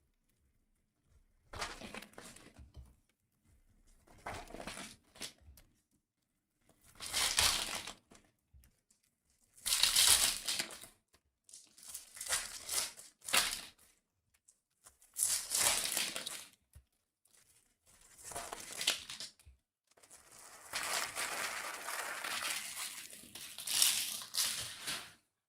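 Trading card pack wrappers being torn open and crinkled, in about eight separate rustling bursts, the longest near the end.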